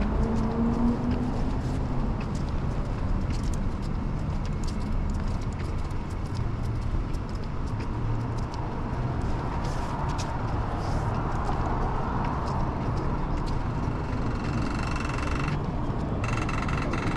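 Street traffic: a steady rumble of cars passing on a busy road.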